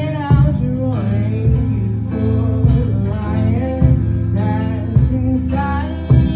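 Music: a song with guitar and singing over a steady beat.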